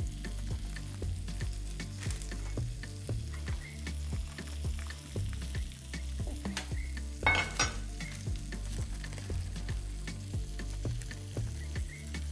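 Food sizzling in a frying pan, a steady crackle under a low background music line, with one brief louder noise about seven seconds in.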